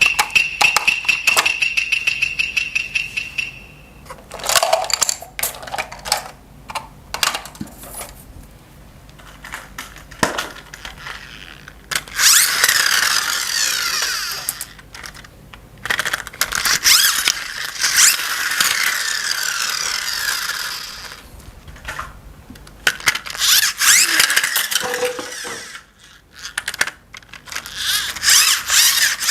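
Plastic toy pieces being handled and fitted together: repeated clicks, knocks and rattles, with two long stretches of rustling in the middle. A steady high electronic tone sounds for the first few seconds.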